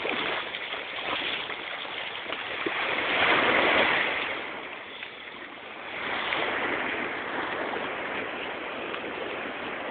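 Shallow sea water sloshing and rushing around a person wading. It swells louder about three seconds in and again a little past six seconds.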